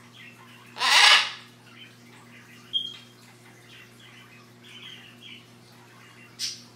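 Scarlet macaw giving one loud, harsh squawk about half a second long, about a second in, then a short thin chirp near three seconds and a brief high scratchy sound near the end.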